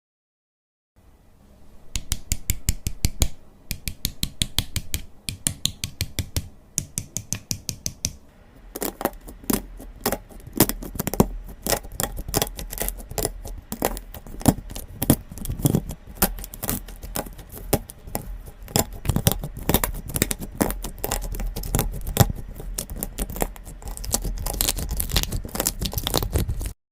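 Slime being squished and poked by hand, giving a run of sharp clicks and pops. They start about a second in, a few a second at first, then grow denser from about eight seconds in.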